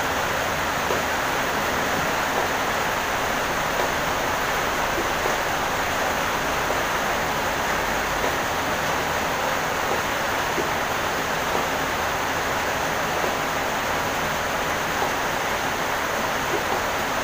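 Steady, even rushing background noise with a few faint ticks.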